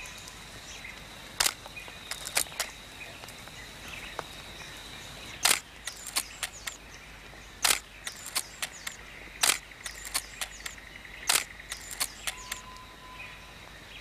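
Camera shutter clicking a handful of times, roughly every two seconds, each sharp click trailed by a few lighter ticks, over quiet forest ambience with a faint steady high tone.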